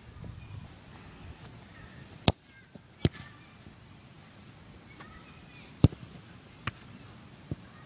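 A football being kicked on grass: sharp thuds, two close together a couple of seconds in, a third just before the six-second mark, and two softer ones near the end.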